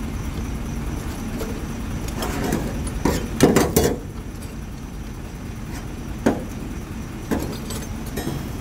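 A quick cluster of knocks and clinks about three to four seconds in, and two single knocks later, over a steady low rumble.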